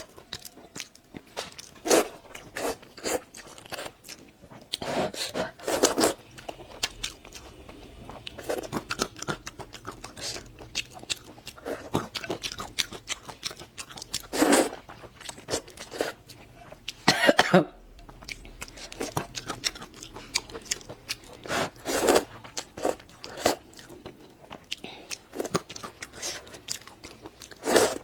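A person eating close to the microphone: a run of wet chewing and crunching mouth sounds with sharp clicks, and several louder bursts scattered through.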